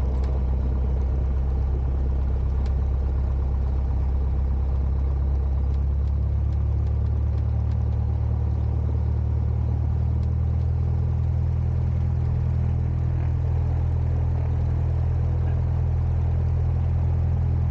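Cessna 172's piston engine and propeller running at low power while the plane taxis, heard from inside the cabin as a steady low drone that shifts slightly in pitch about six seconds in.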